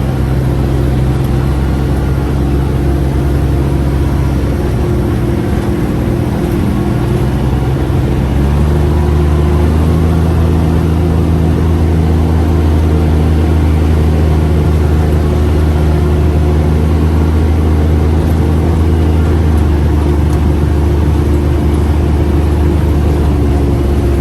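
Four-seat UTV's engine running steadily under way, heard from on board; its pitch steps up about eight seconds in and holds higher.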